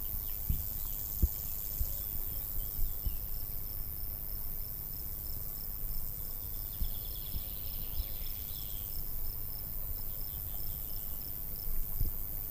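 Outdoor park ambience: a high, rapid chirping repeats about four times a second almost throughout. Other brief chirps come through around the middle, and there are occasional low thumps.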